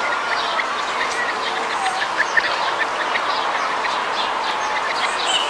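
Ducklings peeping: a dense, steady chatter of many short high peeps, with a couple of louder ones a little over two seconds in.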